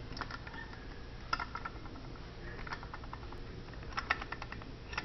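Irregular small clicks and taps from a model alpha Stirling engine's metal frame and parts as it is handled and turned in the hands, in a few short clusters over a low steady hum.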